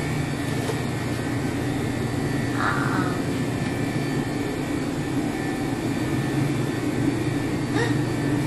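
Steady low hum of shop background noise, with a brief higher wavering sound about three seconds in and a faint click near the end.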